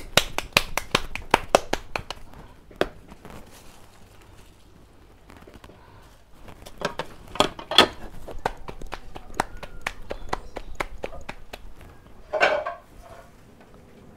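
Hands patting masa into tortillas: quick runs of sharp slaps, a dense run at the start and another about seven seconds in. A brief voice-like sound stands out about twelve seconds in.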